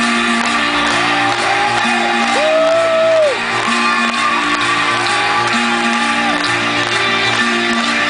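Live band playing through a festival PA, with guitar, keyboard and a steady beat, and long held notes that slide in and out at their ends.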